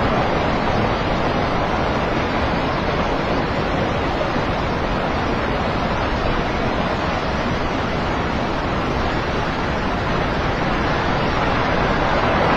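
Landslide of rock and dry debris sliding down a mountainside, making a steady rushing noise without separate rock impacts standing out.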